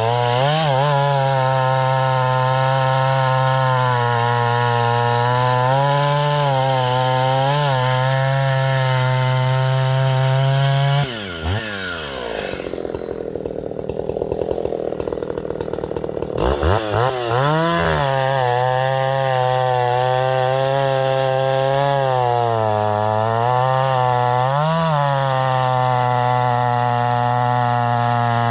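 Vintage Husqvarna L65 two-stroke chainsaw running at full throttle through cuts in ash, its pitch dipping briefly under load. About eleven seconds in the throttle is released and the engine drops to a rough idle for a few seconds, then revs straight back up to full speed. The carburettor's high-speed jet has just been leaned by a fraction of a turn.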